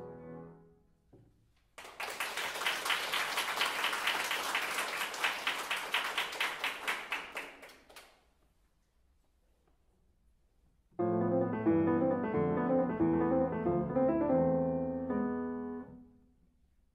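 A grand piano's last chord dies away, then an audience applauds for about six seconds. After a few seconds of near silence, solo piano playing starts again about eleven seconds in and stops briefly near the end.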